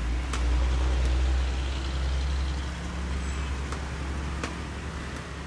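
Diesel engine of a Hino 500 LPG tanker truck running with a deep, steady rumble as it crosses, loudest in the first second or so and then easing off, with a few sharp clicks.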